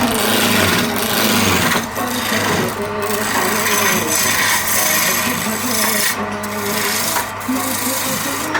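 Abrasive working of wood: continuous rasping or scraping strokes across a wooden surface, with brief breaks between passes.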